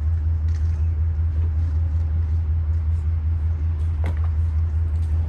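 A stopped Amtrak passenger train idling at the platform gives a steady low drone. A single sharp knock comes about four seconds in.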